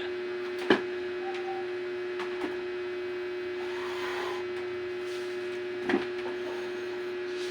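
An old amplifier being handled and pulled out: two sharp knocks, about a second in and near the end, and a short scraping rub in between. A steady high-pitched hum runs underneath throughout.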